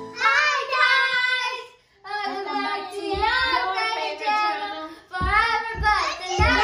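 Children singing in high voices, with long held and gliding notes, and no clear words. A few low bumps come in during the second half.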